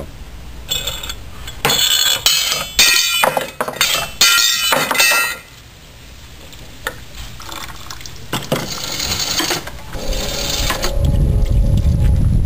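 Homemade Rube Goldberg machine in motion: its metal, wooden and plastic parts clink and rattle in a run of sharp bursts for about the first five seconds, then settle to a softer, steady noise with a low rumble near the end.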